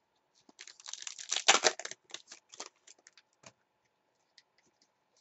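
A trading-card pack wrapper being torn open: a quick burst of crinkling and tearing starting about half a second in, loudest at around one and a half seconds, then a few scattered crinkles and card clicks that die away by about three and a half seconds.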